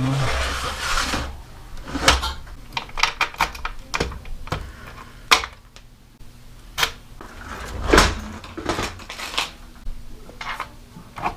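Hands working on a folding e-bike's aluminium frame and fittings: a scrape near the start, then a run of irregular clicks and knocks, with a louder knock about five seconds in and a heavier thud about eight seconds in.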